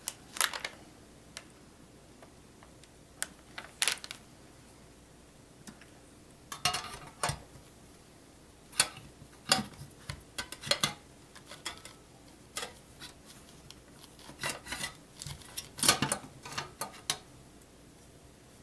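Irregular sharp clicks, taps and clatters of computer hardware being handled inside a desktop PC case while a hard drive and its SATA cables are fitted.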